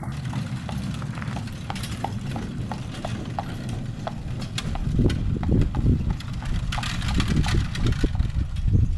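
Horse hooves clip-clopping at a walk, about three beats a second, over a low steady rumble. Heavier, louder knocks join in during the second half.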